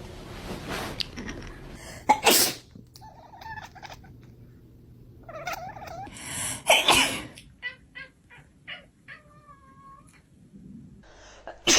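A person sneezing loudly twice, a couple of seconds in and again about seven seconds in, with the cats answering in short, high meows between and after the sneezes.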